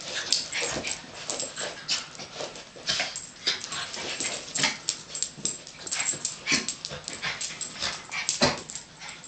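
Two Yorkshire terriers play-fighting, making a rapid, irregular run of short high-pitched dog noises.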